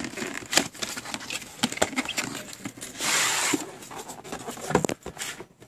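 A cardboard retail box being opened and handled, with scattered clicks and taps. About three seconds in, a half-second sliding rustle as a metal storage case is drawn out of the box, then a sharp knock near the end.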